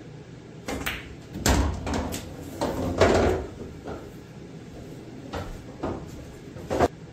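Pool shot: a quick tap and clack of balls about a second in, then heavier thuds and rumbling as the object ball drops into a pocket. A few softer single knocks follow later.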